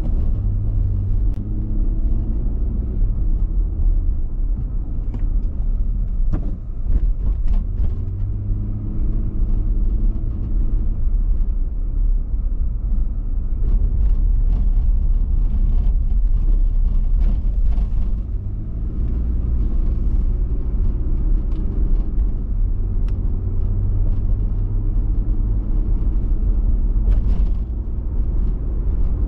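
A car being driven, heard from inside the cabin: a steady low rumble of engine and road noise, with an engine hum that comes and goes and a few light clicks.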